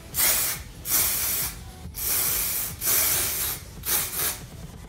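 Aerosol can of temporary green hair color spray hissing in about six short sprays in a row, each under a second long, as it is sprayed onto hair.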